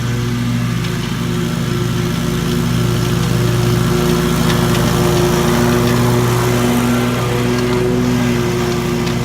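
Commercial lawn mower engine running steadily under load, its level swelling a little in the middle.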